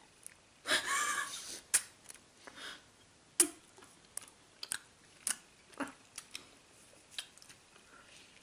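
Eating DIY Japanese candy ramen: a short slurp of a candy noodle about a second in, then scattered sharp clicks and smacks of mouths and a small plastic fork against plastic cups.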